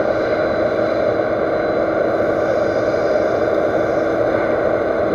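Lathe running with a 4140 steel shaft spinning in the chuck while emery cloth is pressed against it by hand: a steady whir with a faint hum. The bearing seat is being sanded down to size for a tight bearing fit.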